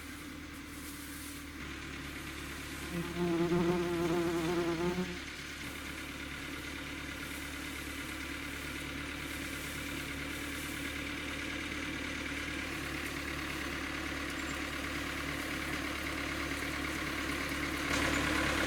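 A motor running steadily with a buzzing tone, growing gradually louder, with a louder pitched hum for about two seconds a few seconds in.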